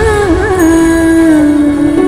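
Background music: a melody line that bends and wavers in pitch at first, then holds one long steady note.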